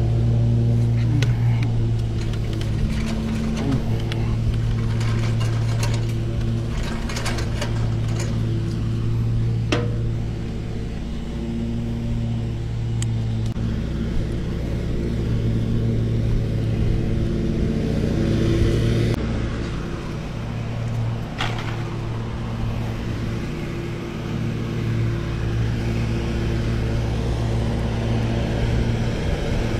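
An engine running steadily at idle, a low even hum, with a few sharp clicks and ticks from trimmer line being handled and wound onto a string trimmer head.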